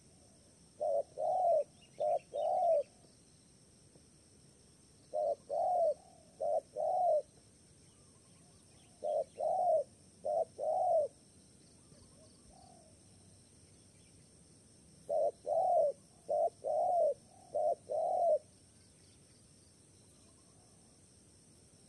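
Spotted dove cooing: four phrases of low, arched coos, the first three of four notes each and the last of six, with pauses of a few seconds between phrases.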